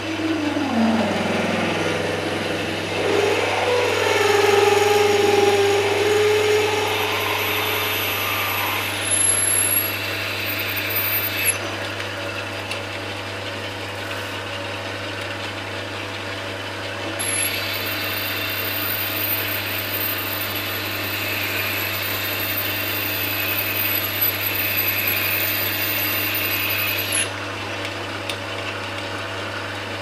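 Sieg C6 metal lathe running while a twist drill in the tailstock chuck is fed into aluminium bar stock, opening the hole out wide enough for a boring bar. A steady motor hum runs throughout, and a high whine comes in briefly about ten seconds in and again for about ten seconds from seventeen seconds, stopping suddenly.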